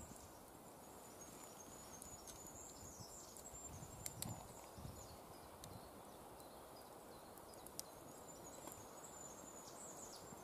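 Near silence: faint outdoor room tone in woodland, with a few small clicks and light handling noises.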